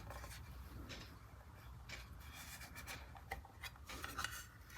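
Faint handling noises: light rubbing and a few small clicks, more of them near the end, over a low steady hum.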